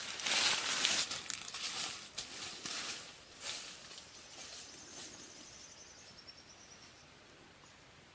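Footsteps crunching and rustling through dry grass and leaf litter, loudest in the first few seconds and fading as the walker moves away. A faint high trill sounds about halfway through.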